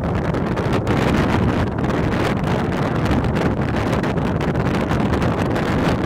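Strong wind buffeting the microphone, a loud, steady low rumble that rises and falls.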